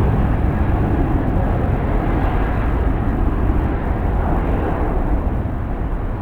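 Jet airliner engines running, a steady noise that eases slightly, with strong wind on the microphone.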